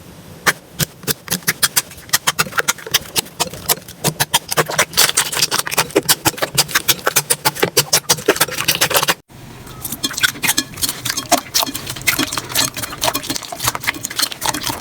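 Slime being squeezed and kneaded by hand, making rapid wet clicking and popping sounds. A cut about nine seconds in switches to another batch with sparser clicks.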